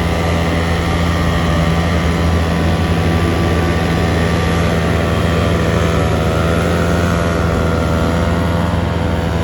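Heavy diesel engine running steadily, with a low rumble and an engine note that shifts slightly in pitch about six seconds in.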